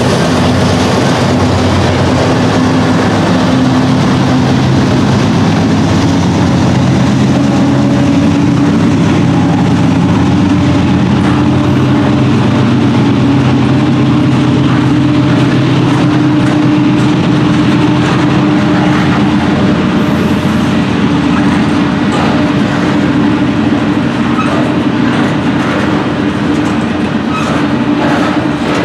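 Canadian Pacific unit grain train rolling past close by: the last diesel locomotive goes by at first, then a steady run of covered hopper cars, their wheels rumbling on the rails with short repeated clicks over the joints.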